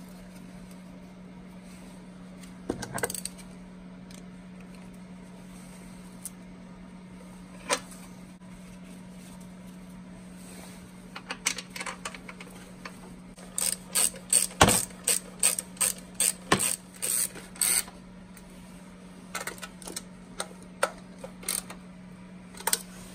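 Hand socket ratchet clicking in quick runs as the intake manifold's 12 mm bolts are run back in, with a few separate clicks of metal on metal. A steady low hum runs underneath.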